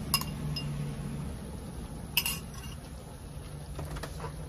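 A spoon clinking against a glass bowl as crab fat is scraped out into a cooking pot: a few sharp clinks, the loudest about two seconds in.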